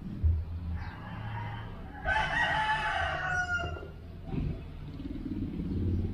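A long animal call about two seconds in, lasting about a second and a half and dropping slightly in pitch at the end, over a steady low rumble. A brief thump comes just after the start.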